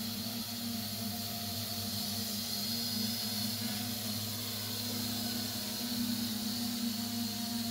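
Homemade multirotor drone's electric motors and propellers buzzing steadily in flight, with a thin high motor whine above the hum.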